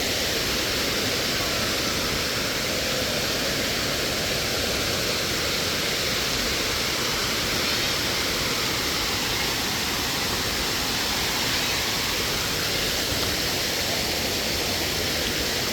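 Steady, even rush of a large waterfall.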